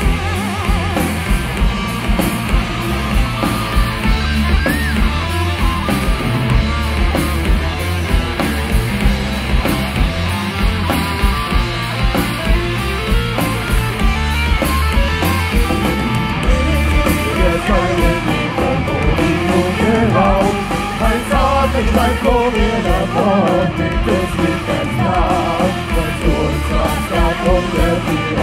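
A folk metal band playing live through a festival PA: distorted electric guitars, bass and a steady drum beat, with a melody line standing out in the second half.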